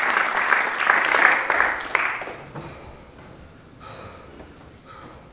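Audience applauding, the clapping fading out about two seconds in and leaving a quiet room.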